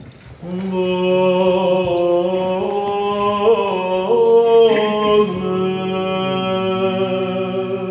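Orthodox liturgical chant: voices singing long drawn-out notes, starting about half a second in. A lower voice holds a steady drone under the moving melody.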